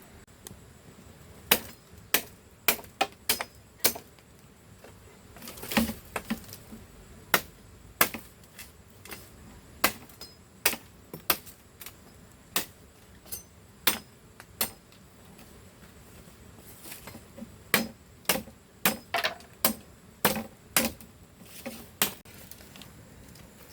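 Irregular series of sharp knocking tool strikes, roughly one a second and sometimes in quick runs of three or four, with a pause of a couple of seconds past the middle.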